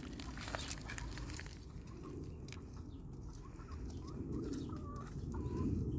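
Small hand garden fork scraping and digging into dry soil and wood-chip mulch, with scattered clicks and scratches that are thickest in the first second or so. Faint short bird calls sound in the background.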